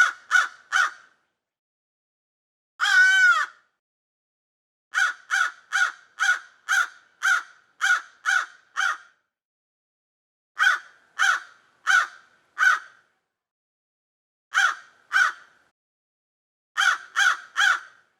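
Crow cawing in bouts of two to nine short, evenly spaced caws separated by pauses, with one longer, harsher call about three seconds in.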